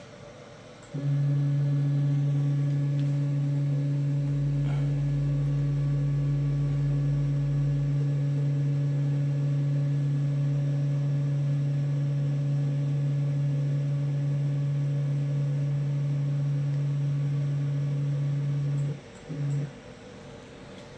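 Closed-loop stepper motors driving the CNC router's gantry along the Y axis on its ball screws, giving a steady, even-pitched hum. The hum starts about a second in and stops near the end, followed by a brief second burst of movement.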